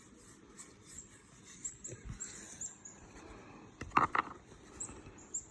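Soft rustling and light clicks of trading cards and pack wrappers being handled, with a short louder rustle about four seconds in, over faint, high, recurring chirps.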